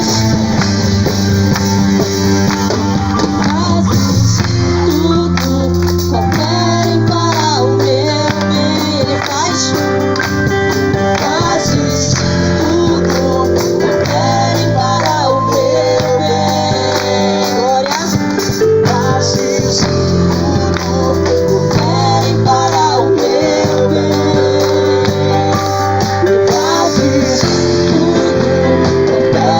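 A worship song: singing over a steady instrumental accompaniment of sustained chords.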